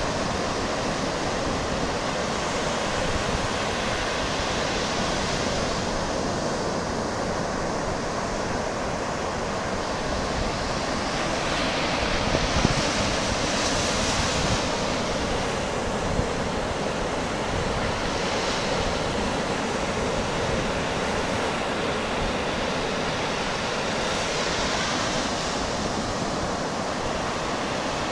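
Ocean surf breaking and washing up a sandy beach: a steady rush that swells a few times as waves run in, with wind rumbling on the microphone.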